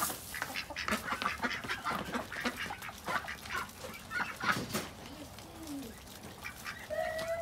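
A flock of ducks and chickens pecking dried fly larvae off a concrete path: many quick, sharp clicks of bills and beaks striking the ground. A bird gives a short call near the end.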